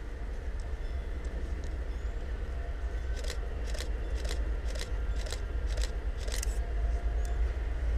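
Deep, steady rumble of a class 232 'Ludmilla' diesel locomotive's V16 engine, growing louder toward the end as it approaches. In the middle comes a run of about seven sharp high ticks, roughly two a second.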